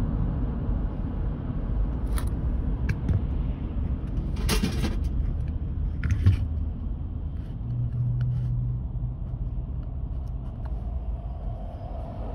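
Car driving, heard from inside the cabin: a steady low engine and tyre rumble with a few sharp clicks near the middle. The rumble eases off toward the end as the car slows behind traffic at a light.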